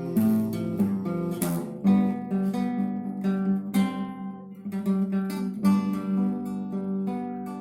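Instrumental acoustic guitar music: chords struck and let ring, a new chord about every second.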